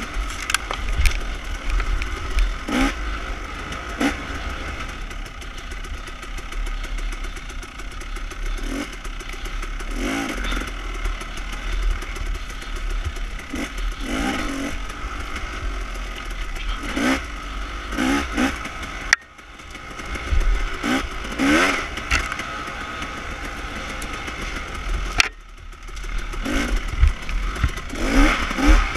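Dirt bike engine revving up and down over and over as the throttle is worked, with clatter and rattling from the bike over rough ground. The engine note drops away sharply twice, about 19 and 25 seconds in, then picks back up.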